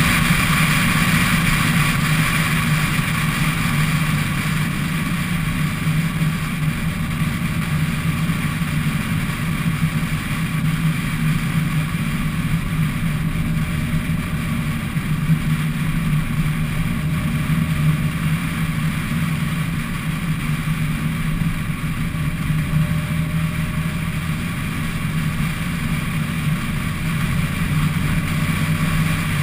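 Car driving at a steady speed, picked up by a camera mounted on its outside body: a steady engine drone mixed with wind and road noise.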